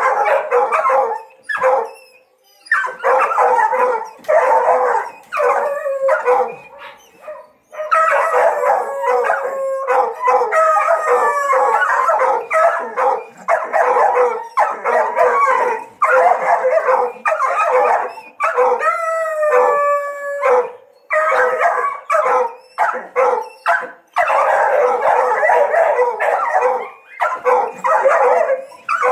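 Several penned hunting dogs barking and howling excitedly at a paca just outside their kennels, their calls overlapping almost without a break. A run of falling howls comes through about two-thirds of the way in.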